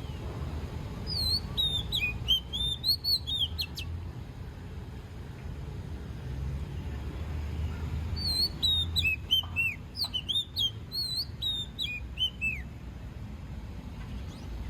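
A songbird singing two phrases of quick, clear whistled notes that slide downward in pitch, a few seconds apart, over a steady low background rumble.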